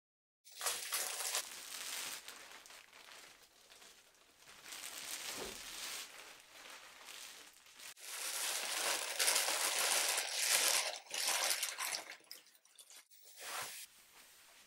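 Clear plastic wrapping crinkling and rustling as it is handled and pulled about by hand. It comes in several bouts and is loudest in the second half.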